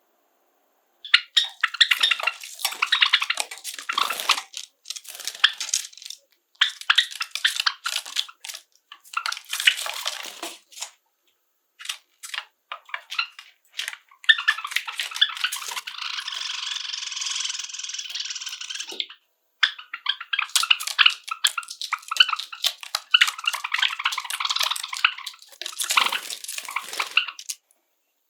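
Pet Java sparrows chirping and singing in rapid clicking, ticking phrases, with a denser, steadier stretch of song about halfway through.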